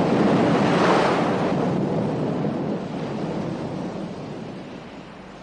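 Sea surf: a wave crashing in a rush of noise that peaks about a second in and then slowly fades away.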